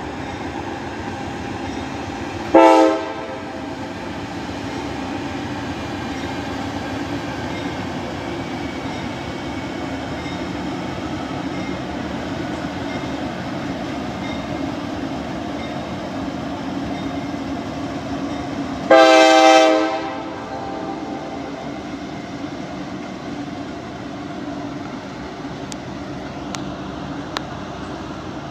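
Diesel freight train locomotives running past with a steady rumble. The locomotive's air horn sounds a short blast about three seconds in, then a longer blast of over a second about sixteen seconds later.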